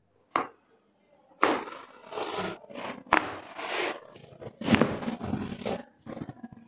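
Body and clothing rustling and scraping against a treatment table as a patient is moved and positioned for a chiropractic adjustment. Several sudden sharp sounds stand out, the strongest about a second and a half, three, and nearly five seconds in.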